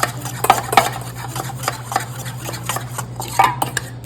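Spoon clinking and scraping against a bowl while a sweet and sour sauce is stirred, in irregular knocks, over a steady low hum.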